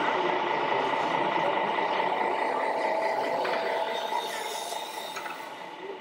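RC model construction machines and trucks running on a dirt course: a steady mechanical hum holding a few fixed tones, with faint clinks and rattles, fading over the last couple of seconds.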